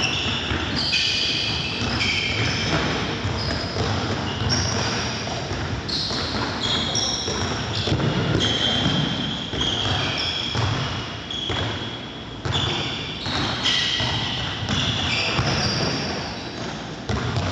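Handball training on a wooden sports-hall floor: handballs bouncing, with many short high squeaks of players' shoes on the court, echoing in a large hall.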